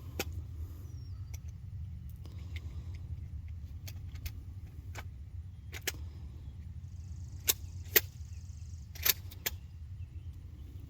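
Steady low rumble with a dozen or so short light clicks and taps scattered through it, the loudest three coming about three quarters of the way in.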